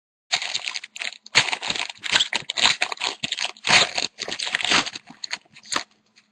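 Foil trading-card pack wrapper being torn open and crinkled by hand, in irregular crackling bursts that stop shortly before the end.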